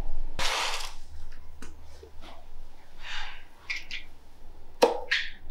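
A man's breathy puffs and sniffs as he smokes a cigarette: a short loud whoosh about half a second in, several soft puffs, and a sharp click near the end.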